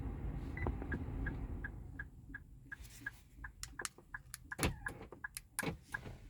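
A car's interior electronic warning chime beeping rapidly, about three short beeps a second, with the ignition on during smart-key programming. A low steady hum fades about two seconds in, and from about three seconds in there are sharp clicks and knocks of handling.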